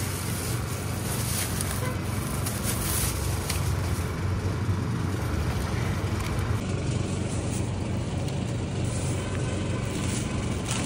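Steady low rumble of motor-vehicle traffic, with a few faint clicks in the first few seconds.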